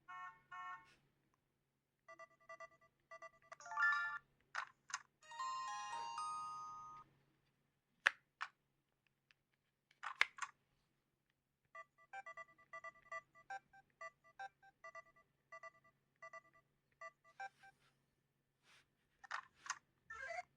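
LG KG800 Chocolate mobile phone playing a series of short electronic alert and effect tones, one after another with silent gaps between them: quick beep patterns, a short melodic jingle, sharp clicks, and in the second half a run of evenly spaced beeps.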